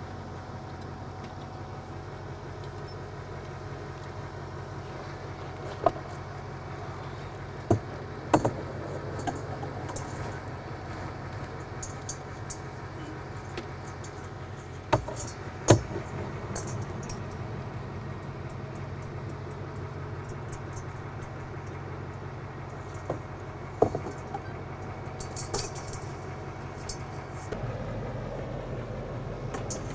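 Scattered metal clicks and light clinks of a snap hook and chain being fastened to a stainless steel float ball, with a cluster of small jingling clinks near the end, over a steady low engine hum.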